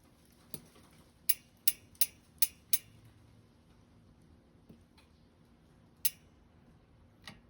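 Sharp clicks from the chain of a SRAM SX Eagle bicycle drivetrain: one click, then a quick run of five about a third of a second apart, then single clicks spaced a few seconds apart. This is the unwanted chain clicking the drivetrain is being checked for.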